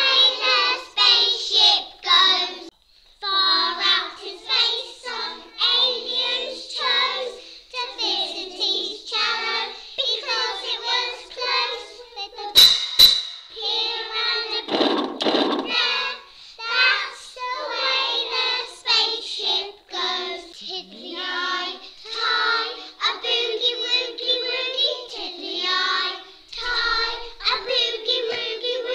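Young voices singing a song, with two sharp clicks about halfway through.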